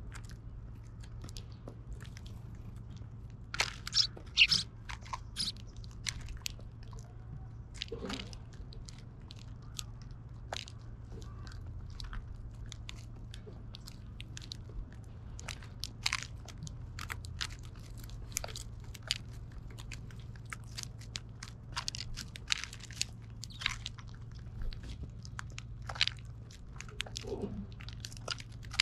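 Eurasian tree sparrows pecking and cracking seeds in a feeder tray close to the microphone: irregular sharp clicks and crunches, with a cluster of louder ones about four seconds in.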